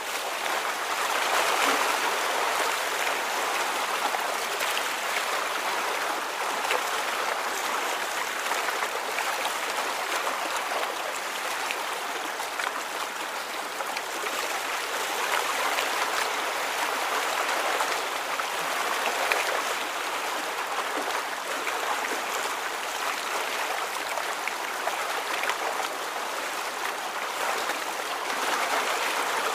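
Running water, like a stream, giving a steady rushing with gentle slow swells in level.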